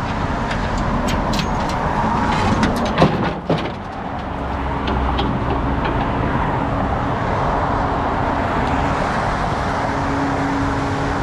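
Concrete mixer truck and freeway traffic running steadily, with a series of metal clanks and knocks and one loud bang about three seconds in. After the bang a steady engine hum with a low drone holds.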